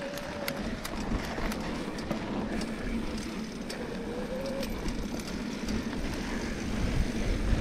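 Off-road handcycle rolling over a loose dirt trail: a steady tyre rumble with scattered clicks and ticks from gravel and small rocks. A faint short whine sounds near the start and again about four seconds in.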